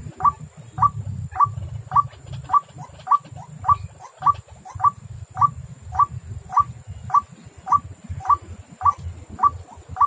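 White-breasted waterhen (ruak-ruak) call repeated in a steady, monotonous rhythm, the same short sharp note a little under twice a second: the waterhen lure call used to draw the bird to the trap.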